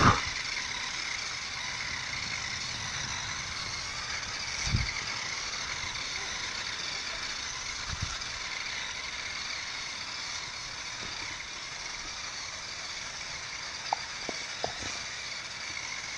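A remote-control toy snowmobile's small electric motor whirring steadily as it drives through snow. There are a few dull thumps, the loudest right at the start, and a few light clicks near the end.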